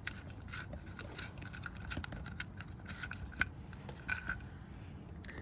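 Scattered small clicks and short squeaky ticks over a steady low wind rumble on the microphone.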